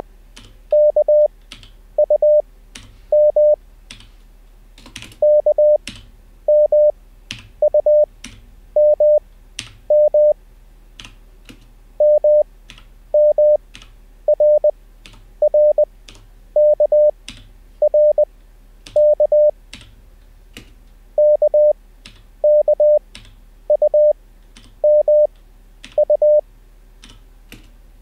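Morse code practice audio: a 600 Hz sidetone sending characters at 20 wpm, spread out with long Farnsworth gaps to 5 wpm effective, about one character a second. Computer keyboard keystrokes click between the characters as each copied letter is typed.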